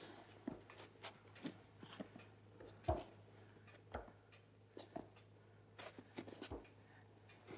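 Faint, irregular knocks and clicks, a few of them dull thuds, the loudest about three seconds in, over a low steady hum.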